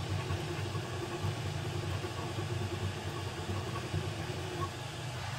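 FLSun V400 delta 3D printer printing at high speed: its stepper motors give a steady mechanical hum with quick, shifting tones as the effector darts about.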